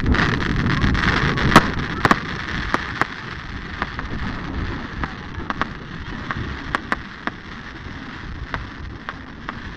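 Fireworks going off: a dense crackle breaks out at the start, then scattered sharp pops and cracks that grow fainter and sparser as the crackling dies away.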